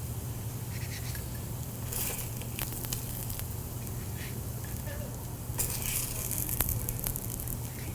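Potato pancakes sizzling in butter and oil in a frying pan, with a few short clicks and scrapes of a utensil against the pan as they are lifted out.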